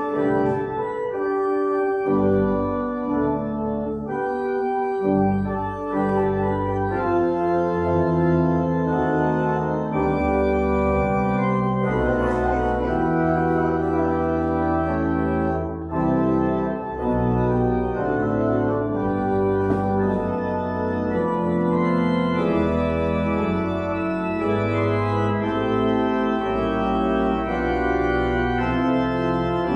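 Organ playing slow, held chords that move every second or two at an even level.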